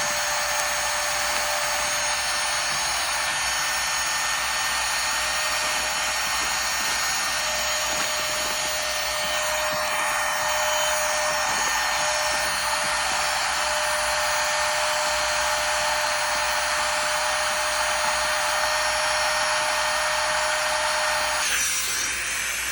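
Small rechargeable handheld vacuum pump running steadily with an even whine, sucking the air out of a travel vacuum storage bag through its valve, and switching off near the end.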